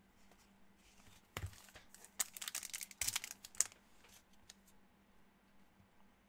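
A Topps baseball card pack wrapper being torn open and crinkled: a rustling, tearing burst about two seconds long, starting a little over a second in, with faint ticks of card handling around it.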